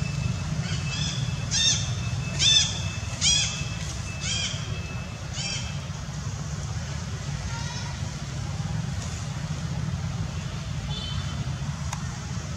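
Short, high-pitched animal calls, about six in quick succession over the first half, loudest a couple of seconds in, over a steady low rumble.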